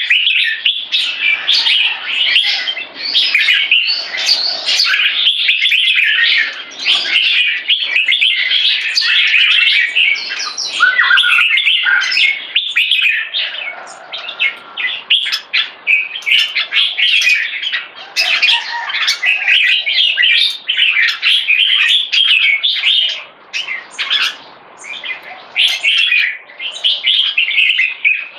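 Red-whiskered bulbul (jambul) singing, a rapid, near-continuous stream of bright chirping phrases with only brief pauses.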